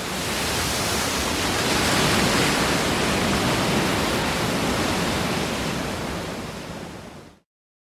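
A steady rushing noise like static or a waterfall, with no tone or rhythm in it. It swells in over the first second or two, slowly fades, and cuts off abruptly about seven seconds in.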